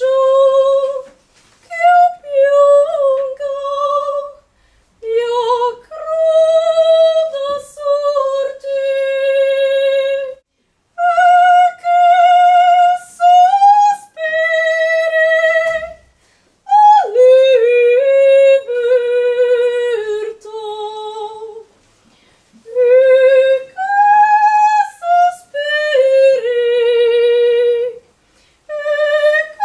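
A woman singing unaccompanied in a high voice, holding wavering notes with vibrato in short phrases separated by brief pauses.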